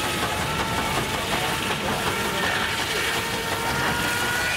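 Sawmill saw driven by a portable steam engine, cutting through a log with a steady whine whose pitch creeps up slightly.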